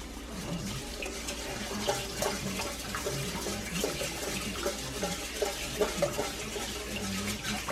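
Rice being rinsed by hand in a bowl of water: sloshing with many small clicks and splashes as the grains are stirred.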